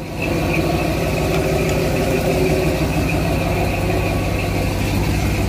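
Chevrolet 496 big-block V8 (a 454 with a stroker kit) in a 1975 K5 Blazer idling steadily, warmed up with its thermostat open.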